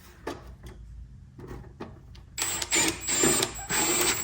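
Small electric screwdriver driving small screws: a few light handling clicks, then the motor runs in three short bursts with a high whine in the second half.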